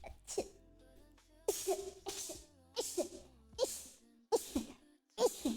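A person sneezing rapidly, about six sneezes in quick succession, roughly one every second, each a sharp burst ending in a short voiced cry that falls in pitch.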